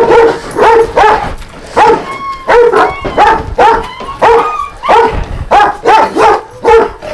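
Dog barking loudly and without pause, about two to three barks a second.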